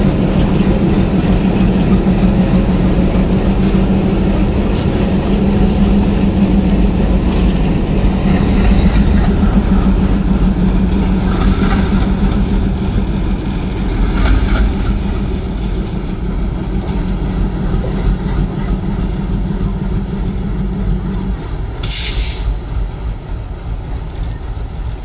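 Twin ALCO WDG3A diesel locomotives running with a heavy, steady engine drone and a low hum, fading slowly as they draw away; the hum drops out near the end. A short, sharp hiss of air follows soon after.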